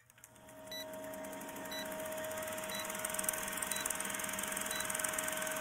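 Old film-projector countdown sound effect: a steady mechanical clatter and whir that fades in over the first second, with a short high beep once a second.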